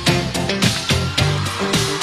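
Band playing an instrumental funk-rock groove: drum kit hits on a steady beat under a driving electric bass line, no vocals.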